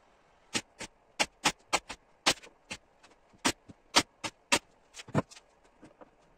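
Sharp, short clicks and knocks coming irregularly, two or three a second, from hand work on a recliner chair's metal mechanism.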